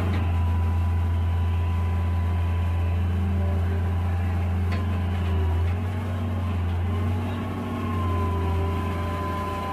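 Hitachi EX220LC hydraulic excavator's diesel engine running under load as the boom and arm are raised, with a steady whine over the low engine hum. The load eases briefly a couple of times. This is a test run after the hydraulic pump was repaired.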